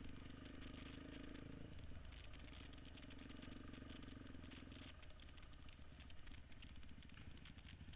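Dirt bike engine running on a trail ride, its note dipping about two seconds in as the throttle eases and coming back, then dropping to a lower, choppier note about five seconds in.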